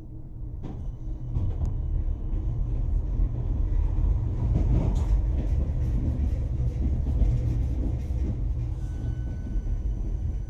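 Tatra T3SU tram heard from inside the car as it pulls away from a stop: a low rumble of motors and wheels on rails grows louder over the first few seconds. There is a sharp knock about a second in and some scattered clicks. Near the end a steady high whine sets in over the rumble.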